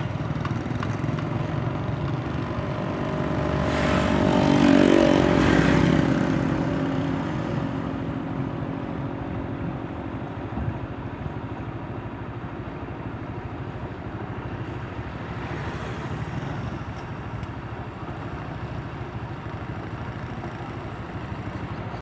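A motorcycle engine passes close by, swelling to its loudest about five seconds in and then fading away. After it, a steady low rumble of outdoor road noise remains.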